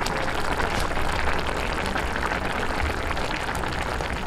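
Tomato broth with milkfish and vegetables boiling in a pan: a steady, dense crackle of popping bubbles, the dish in its last few minutes of cooking.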